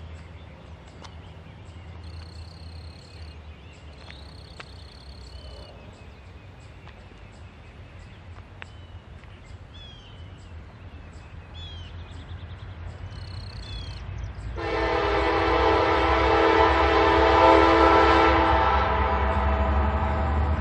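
Norfolk Southern diesel locomotive approaching: a faint low rumble at first, then about 15 s in its air horn sounds one long blast of several tones together, lasting about four seconds.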